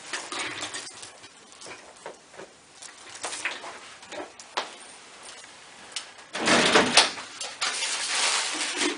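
Chiropractic adjustment on the second side: soft rustling and small clicks as the patient is positioned on the table, then a sudden loud rush of noise with a sharp crack about seven seconds in.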